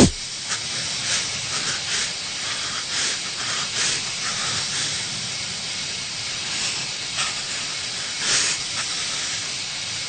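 Steady hiss with short, brighter puffs of hiss at irregular intervals, the strongest one near the end.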